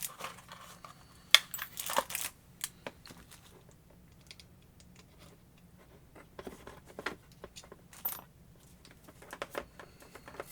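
Irregular small clicks, taps and rustles of rotary tool parts being handled: a collet and attachments knocking against the tool, with a few louder knocks about two seconds in and again near eight seconds.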